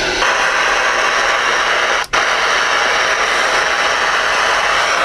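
Loud receiver static hissing from a Stryker SR-655 ten-meter radio played through an external speaker, with a brief dropout about two seconds in.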